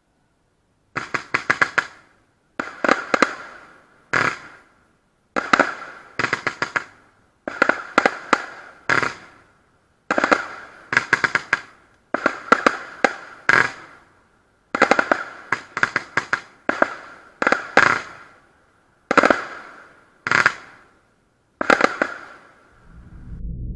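Consumer (category F2) fireworks going off in clusters of several sharp bangs in quick succession. A new cluster comes about every second and each one dies away briefly. Music fades in near the end.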